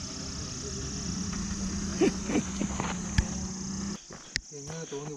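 Steady high-pitched insect chirring over outdoor ambience, with a low rumble and a steady low hum that drop away suddenly about four seconds in, and a few sharp clicks.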